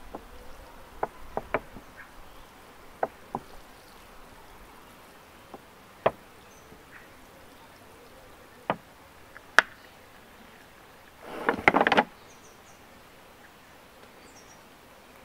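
Water sprinkling from a plastic bottle's sprinkler rose onto a bonsai pot's gritty soil, a faint steady patter, with scattered sharp clicks and a brief crackling burst about eleven seconds in.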